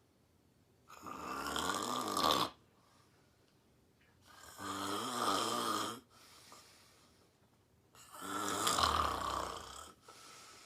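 A sleeping woman snoring: three snores, each one to two seconds long, about three and a half seconds apart, with quiet between them.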